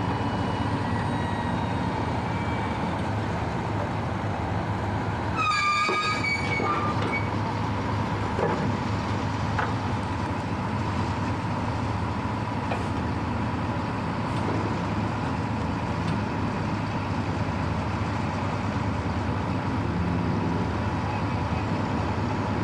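Steady, unbroken machinery rumble with a hum, and a short horn toot about six seconds in.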